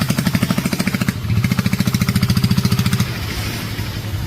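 Small boat's engine running with a rapid, even pulsing, easing off about three seconds in.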